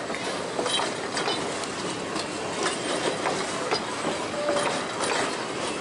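Open wagons of the Puffing Billy narrow-gauge train roll past close by. Their wheels clatter and click irregularly over the rail joints, with a short wheel squeal now and then.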